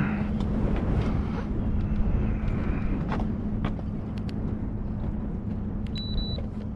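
Boat motor running steadily with a constant hum, wind buffeting the microphone, a few light knocks, and a short high electronic beep near the end.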